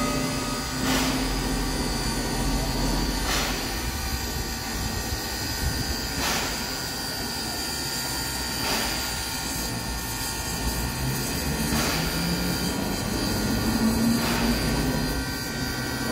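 Baldwin 0-6-0 steam locomotive standing under steam while a turntable turns it: a steady mechanical drone with a constant high whine, and a short sharp sound about every two and a half seconds. A low tone rises slowly near the end.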